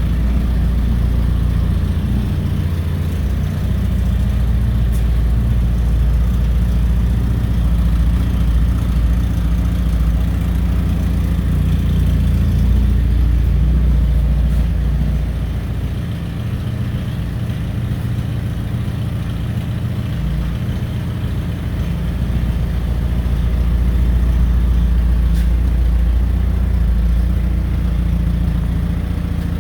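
Fiat Croma's engine idling steadily, its loudness sagging slightly a little past the middle and picking back up.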